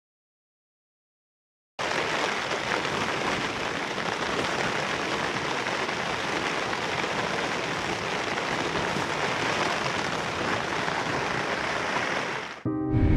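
Steady rain falling on a tent's fabric, heard from inside the tent; it starts suddenly about two seconds in.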